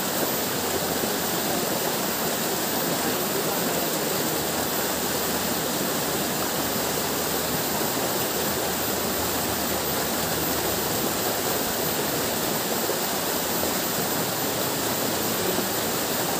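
Steady rush of running water, an even hiss with no breaks or distinct events.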